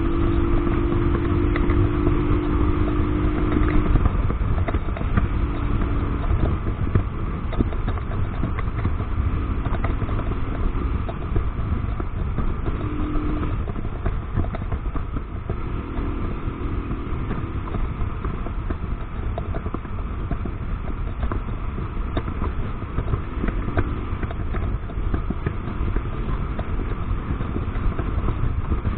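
Romet ADV motorcycle cruising at road speed, its engine running steadily under heavy wind rush on the camera microphone. A steady hum stands out for the first few seconds and returns faintly now and then.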